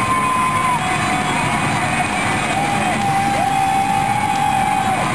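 A large stadium crowd cheering and yelling under a domed roof, with music playing over it: a few long held notes, each sliding down at its end.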